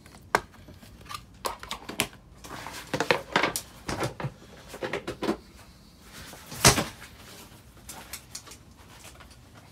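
Irregular clicks and knocks as someone moves about a sailboat's fiberglass cockpit, with one sharper knock about two-thirds of the way through.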